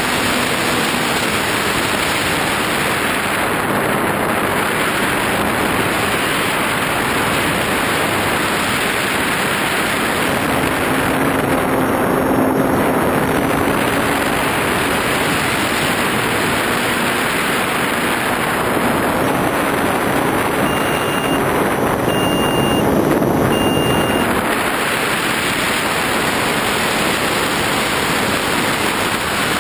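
Wind rushing over a camera mounted on the wing of an RC model plane in flight, with a faint motor and propeller hum that comes and goes. About twenty seconds in, three short high beeps sound about a second and a half apart.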